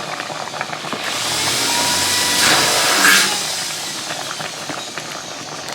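A pot of coconut-milk sauce boiling and being stirred, with a steady patter of small bubbling and clicking sounds. A rushing hiss swells up about a second in and fades out again by about four seconds.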